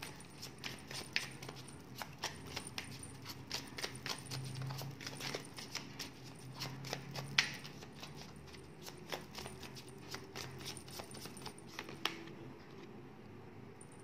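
Tarot cards being shuffled and handled: a run of quick, irregular taps and flicks that dies away about twelve seconds in.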